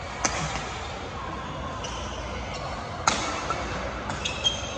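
Badminton rackets striking a shuttlecock in a doubles rally: two sharp smacks about three seconds apart, the first just after the start and the second about three seconds in. Short high squeaks of shoes on the court floor follow near the end, over the steady background hum of a busy sports hall.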